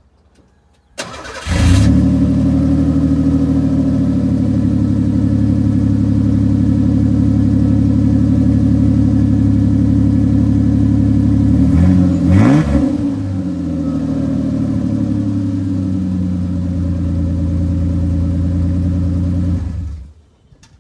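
1990 Ford Ranger's 2.9-litre V6 running on an open exhaust pipe with no muffler. It starts about a second in, idles steadily, is revved once briefly about halfway through, settles back to idle and is shut off near the end.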